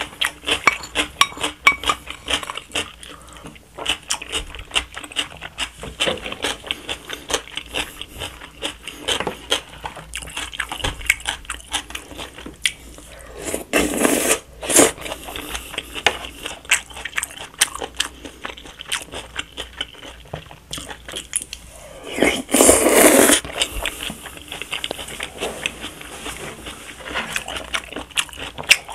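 Close-miked eating: steady chewing and mouth clicks, with two loud slurps of sauce-coated jajangmyeon noodles, about halfway through and again a little past three-quarters of the way.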